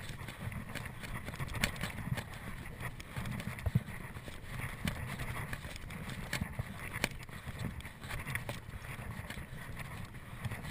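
Mountain bike ridden along a dirt trail: tyres rolling and the bike rattling, with scattered sharp clicks and knocks over a steady low rumble.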